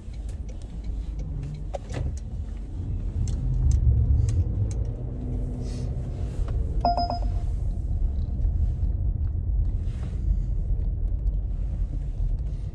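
Car interior road noise: a steady low rumble of the car in motion. A few faint clicks, and a short electronic beep about seven seconds in.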